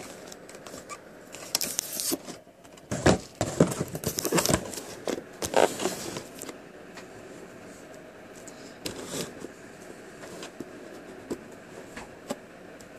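Camera handling noise: a few seconds of loud rustling and scraping with sharp clicks, then scattered faint clicks.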